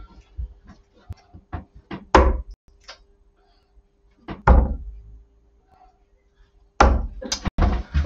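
Three heavy thuds about two seconds apart, each with a short ringing tail: darts striking a dartboard.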